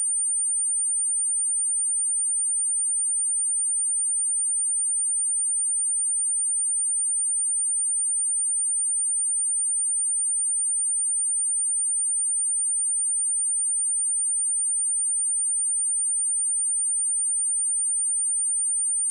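Steady 9005 Hz sine-wave test tone: one pure, high-pitched whistle held at a constant level, used to check a speaker and to clear water and dust from it.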